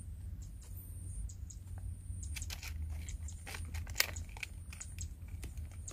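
Wooden chopsticks picking grilled eel out of a crumpled aluminium-foil packet and setting it on a rice-paper wrap: a string of light clicks and foil crinkles, with one sharper click about four seconds in.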